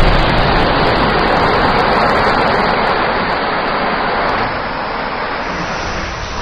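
Match heads packed in a homemade cannon burning off in a big flare of flame: a loud, steady rush of fire that slowly dies down, dropping a little about four and a half seconds in.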